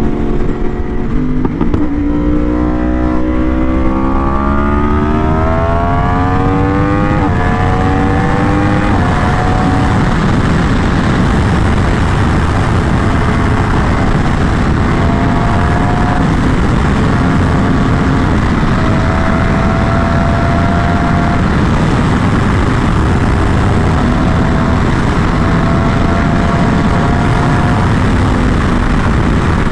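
Sport bike engine accelerating, its pitch climbing for several seconds with upshifts at about seven and nine seconds in. It then holds a steady highway cruise with small rises in pitch, under heavy wind rush on the microphone.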